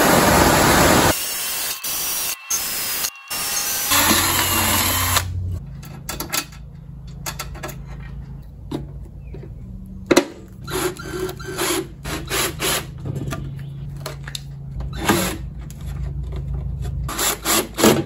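Air rush of a squirrel-cage blower in the first second and again briefly about four seconds in. After that a cordless drill runs in short spells into a wooden board over a low steady hum, with knocks of tools being handled and the bursts coming more often near the end.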